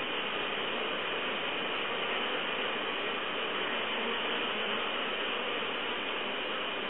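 Steady dense buzzing of many honeybees flying in front of their hive entrance, the mass hovering of young bees on orientation flights (toki-sawagi).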